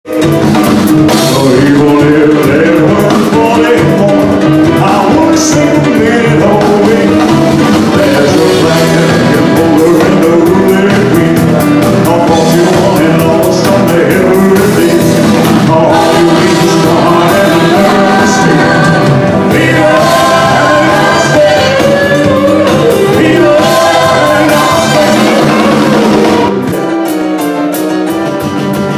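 Band music with singing, a little quieter for the last couple of seconds.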